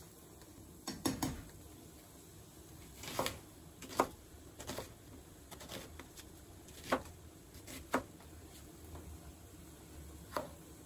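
Kitchen knife cutting an onion on a plastic cutting board: sharp, irregular knocks of the blade meeting the board, one to two seconds apart. A short clatter of kitchen utensils comes about a second in.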